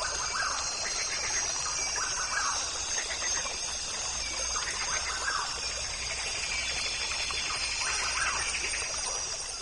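Birds calling over and over, a short call about every one to two seconds, over a steady high-pitched background chorus.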